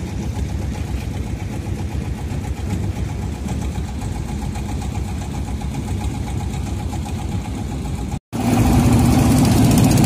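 Boat engine running steadily. A little after eight seconds the sound breaks off for an instant and a louder engine drone takes over.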